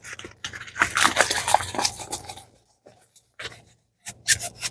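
Packaging crackling and tearing as a small diamond painting kit is opened, a dense burst for about two seconds, then a few short rustles and clicks near the end.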